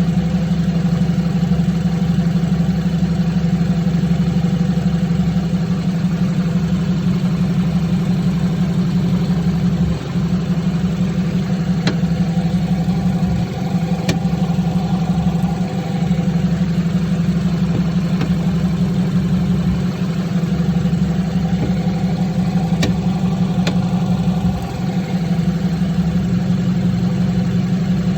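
2016 BMW 328i (F30) with its 2.0-litre turbo four idling steadily while the steering is turned to full lock, with a few separate sharp clicks. This is the clunk-click the owner reports when the wheel reaches full lock left or right.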